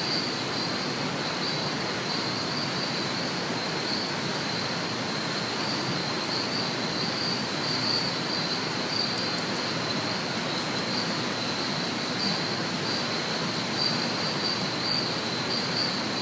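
Steady background hiss with a continuous high-pitched whine or buzz held at one pitch, unchanging throughout.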